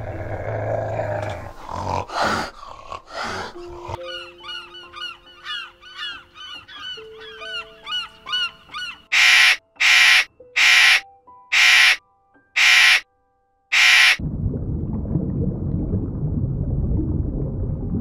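Macaws squawking: six loud, harsh calls about a second apart, after a stretch of chirping bird calls over soft held music notes. The calls are followed by a steady low rushing noise.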